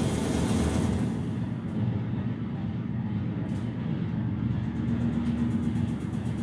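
Live electronic noise music: a dense, rumbling low drone with a hiss that swells at the start and fades over the first second or two, and a steady low tone joining about five seconds in.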